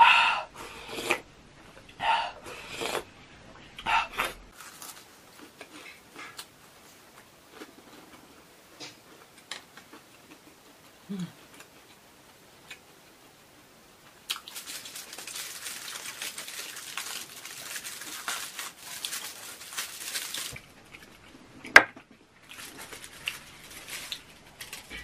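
Close-miked slurps from a spoon of milk tea with taro balls, three in the first few seconds, followed by faint eating clicks. About halfway through comes several seconds of crinkling aluminium foil as a foil-wrapped pizza is handled, then a sharp click and more foil rustling.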